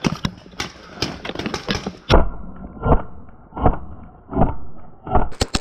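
Knocks and heavy, muffled thumps of footsteps on the wooden stairs and boards of a paintball fort, about one every three-quarters of a second. Near the end a paintball marker starts firing rapid sharp shots.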